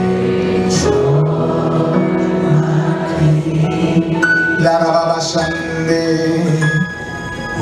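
Slow worship music with long held chords and voices singing along.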